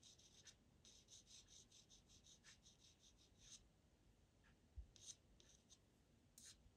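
Faint scratching of a pastel pencil on Pastelmat paper as short hair strokes are drawn: a quick run of about three or four strokes a second for the first few seconds, then a few single strokes. There is a soft low bump just before five seconds in.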